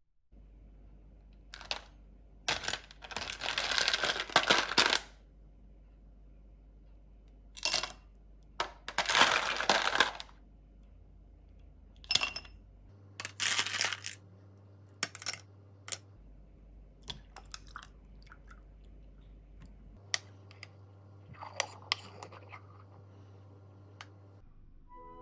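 Kitchen handling sounds: sharp clinks and taps, with two longer rattling, rustling stretches in the first half and scattered lighter clicks afterwards.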